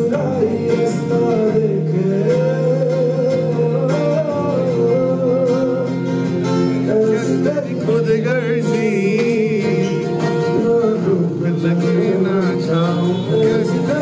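A man singing live to his own strummed acoustic guitar, amplified through a microphone and a small speaker.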